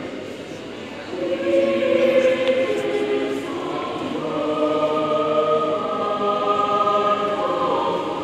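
A small choir of men's and women's voices singing long held notes. The singing begins about a second in, after a brief lull.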